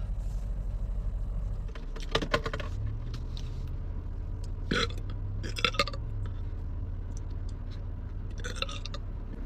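Several short, small burps from a young woman, spaced a few seconds apart, over a low steady hum.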